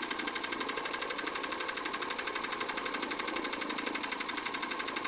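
Film projector clattering: a rapid, even mechanical clicking that keeps a steady rhythm.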